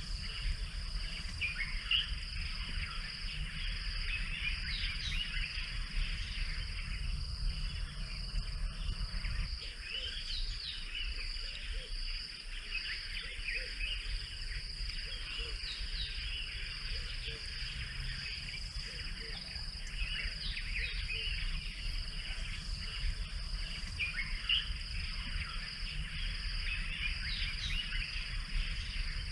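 Bush ambience: a steady high insect trill, with many short bird chirps scattered over it and a low rumble underneath.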